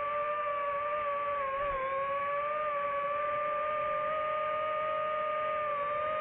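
Quadcopter FPV drone's electric motors and propellers whining steadily as it hovers. Several close tones shift slightly against each other, and the pitch dips briefly about a second and a half in as the throttle eases, then settles again.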